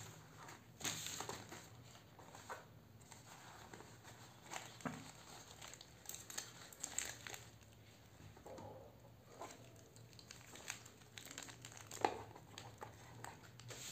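Plastic packaging crinkling and rustling irregularly as hands handle a clear plastic accessory bag and a soft pouch.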